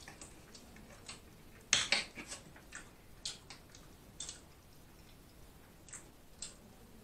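A metal fork clinking against a plate in a series of sharp clicks and clatters, loudest in a quick cluster about two seconds in, with scattered single clicks after.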